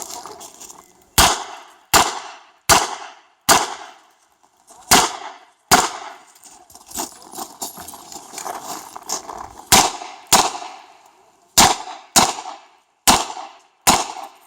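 Revolver shots fired in quick strings, about a dozen in all, from a Smith & Wesson 929 competition revolver. A pause of about four seconds in the middle splits them into two groups.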